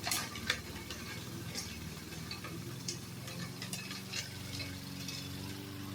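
Troy-Bilt push mower's small engine running steadily, with scattered sharp ticks and clicks over it, the strongest about half a second in.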